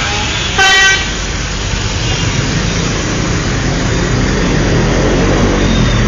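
A bus horn gives one short toot about half a second in, over the steady running of a bus engine that grows louder toward the end.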